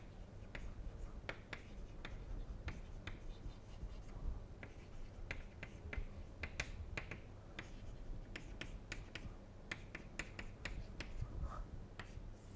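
Chalk writing on a blackboard: a string of irregular sharp ticks and taps as the letters are formed, over a low steady room hum.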